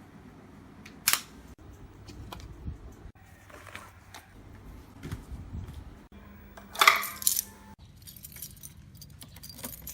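Scattered small metallic clicks and clinks, with a short louder jangle about seven seconds in.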